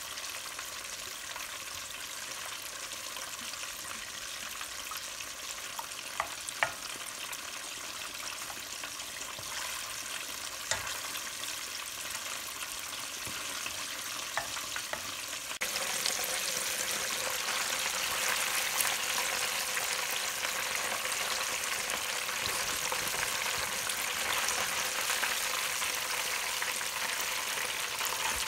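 A pan of hot buffalo sauce (hot sauce with butter melting in it) hissing softly on the stove, with a few light knocks. About halfway through it changes abruptly to chicken drumsticks deep-frying in oil: a louder, steady crackling sizzle.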